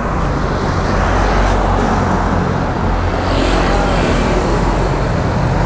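Roadside traffic noise over a steady low engine hum, with a motorcycle passing about three and a half seconds in.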